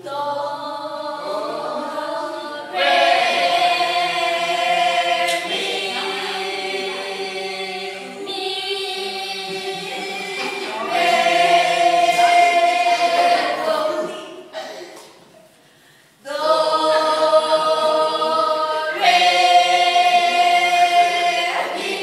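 A group of young voices singing together unaccompanied, in phrases of a few seconds each, breaking off for about two seconds past the middle before starting again.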